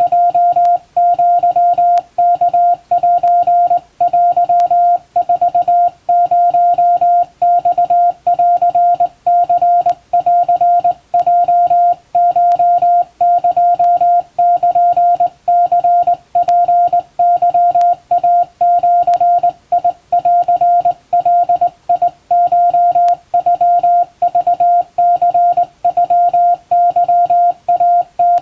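Japanese wabun Morse code sent by hand on a straight key: a single steady beep keyed on and off in a continuous run of short dots and longer dashes with brief gaps between characters.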